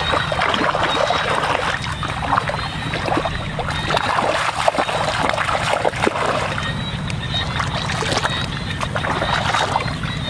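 Hands splashing and sloshing through muddy shallow water, with many small splashes and drips over a steady low hum.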